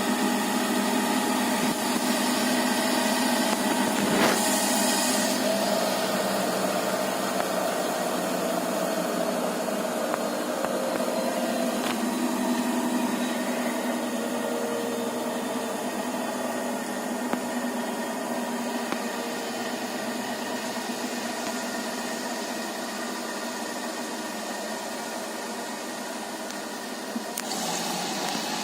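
Siemens iQ500 varioPerfect iQdrive washing machine's drum and motor running in an interim spin with an unbalanced load. The hum slowly grows quieter, with a click about four seconds in and a change in the sound near the end.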